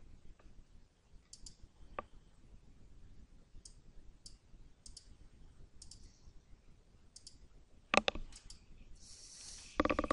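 Computer mouse clicking: quiet clicks, often in quick pairs or triples, every second or two as nodes are selected and dragged, with a single louder knock about eight seconds in.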